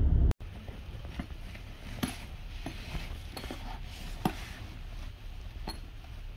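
Rustling of a fabric pet carrier and scattered light knocks, about eight spread irregularly over a low steady hum, as a hand strokes a cat inside the carrier.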